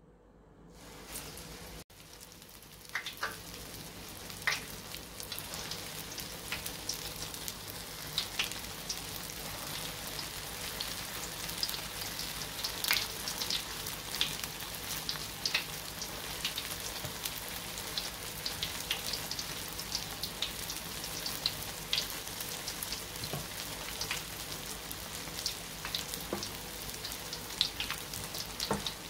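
Stuffed qatayef pancakes shallow-frying in hot oil in a pan: a steady sizzle with frequent pops and crackles, settling in after the first two seconds.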